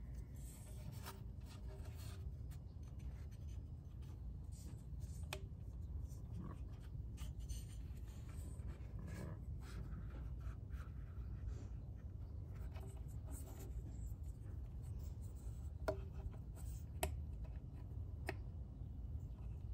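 Hands handling a removed scooter side cover, with scattered light rubbing and scraping and a few sharp clicks, over a steady low rumble.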